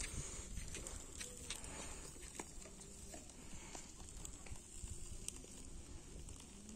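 Faint, irregular crackling and ticking from a large split bluefish (kofana) grilling on a wire grate over charcoal.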